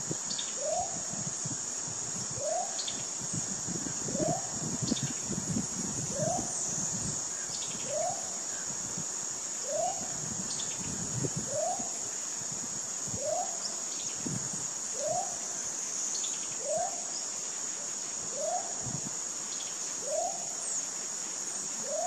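Tropical forest ambience: a steady, high-pitched insect drone, with a short rising call note from an unseen animal repeated evenly about every second and a half to two seconds.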